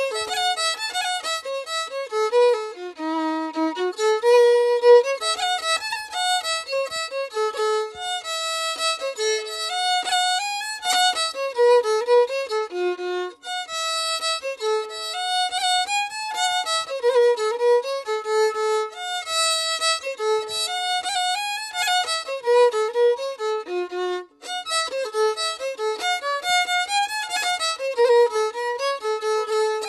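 Background music: a fiddle playing a melody of quickly changing notes.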